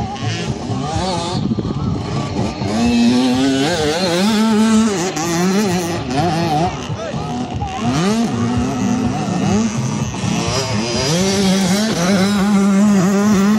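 Several 65cc two-stroke motocross bikes revving, their engine notes rising and falling as the riders work the throttle, with two or more bikes overlapping at once.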